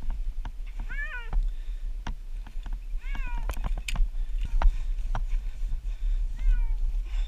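A domestic cat meowing three times, each meow a short call that rises and then falls in pitch. Sharp clicks and knocks fall between the meows over a steady low rumble.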